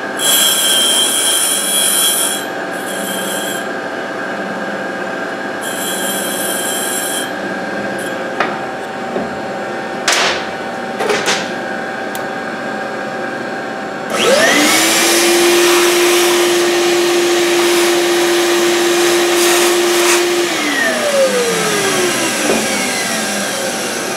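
Sunnen rod cap cutter's grinding stone being dressed with a diamond: three short spells of high, hissing grinding in the first seven seconds over a steady hum, then a few clicks. About fourteen seconds in a motor spins up, runs at one steady pitch for about six seconds, and winds down.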